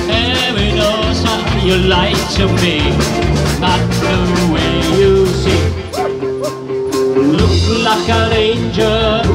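Live rock band playing loud through a PA: electric guitars, bass and drums, with singing. The bass and drums drop out for a moment about six seconds in, then come back.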